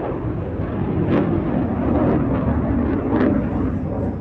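Fighter jet engine noise from a display aircraft flying overhead: a steady, loud rumble that swells slightly about one and three seconds in.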